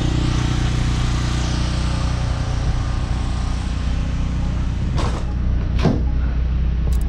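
An engine running steadily, a low even drone under a hiss, with two brief swishes about five and six seconds in.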